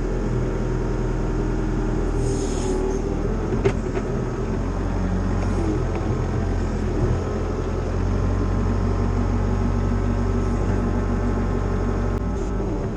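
Cat 304 CR mini excavator's diesel engine running steadily, with a single sharp knock about four seconds in.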